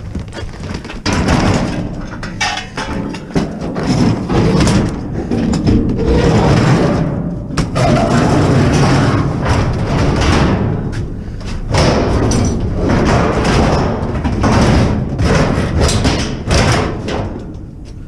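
Scrap metal and sheet-metal appliance shells being handled and moved: repeated bangs, thuds and clattering, with scraping, over the whole stretch.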